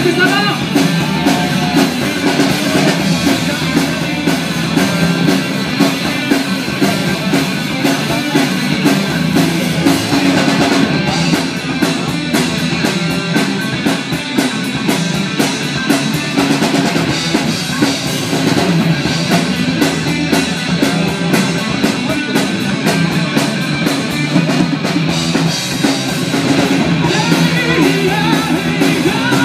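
Live rock band playing through a PA system: a drum kit keeping a steady beat under guitars, with a singer's voice at the start and again near the end.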